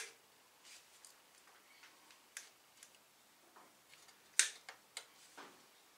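A few sharp, irregular electrical snaps and clicks, the loudest about four and a half seconds in, from battery leads arcing at the starter motor of a 1937 Ford flathead V8. The starter does not turn the engine over.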